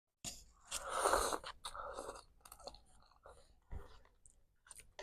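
A person chewing crunchy food close to the microphone, with a loud crunch about a second in followed by smaller crunches and wet mouth clicks.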